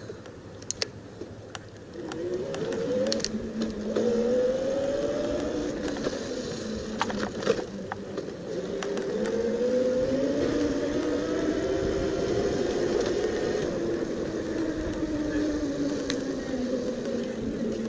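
Bafang BBS02 mid-drive e-bike motor whining under power, its pitch rising and falling as the bike speeds up and slows. A few sharp clicks come in the first half.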